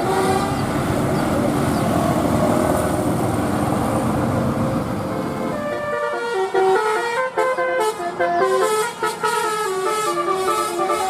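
A bus going past, its engine noise mixed with horn tones, for about the first six seconds. Then a telolet basuri musical horn plays a tune in quick stepped notes, going up and down in pitch.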